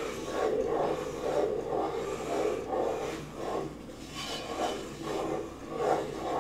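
A wooden spoon scraping and rubbing round the bottom of a metal pot of cooking toffee, in repeated strokes at about two a second.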